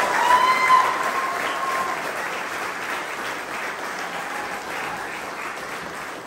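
Crowd of guests applauding and cheering, with a held whoop that ends about two seconds in; the applause slowly dies down.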